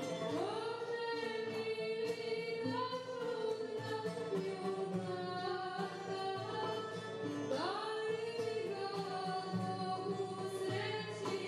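A woman singing a Serbian town song in the čalgija style, her voice sliding up into long held notes, to plucked long-necked lute and oud accompaniment.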